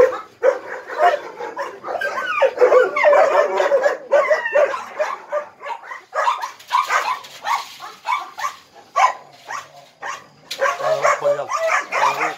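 Several kennel dogs barking and yelping in bouts with short pauses between them.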